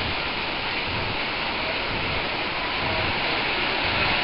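Small waves washing onto the sand at the shoreline: a steady rush of surf.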